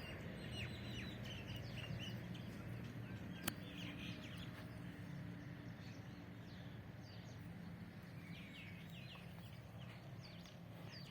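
Small birds chirping in many short, quick calls over a steady low hum, with one sharp click about three and a half seconds in.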